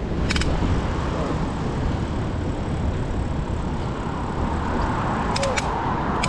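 Steady rushing wind-and-road noise while riding a mountain bike, with a few sharp clicks about half a second in and again near the end.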